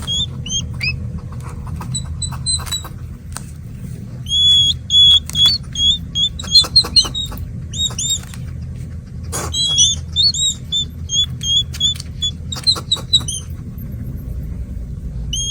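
Hedgehog crying: short, high-pitched squeaky chirps, many in quick succession, coming in bursts, with scattered sharp clicks. A steady low rumble runs underneath.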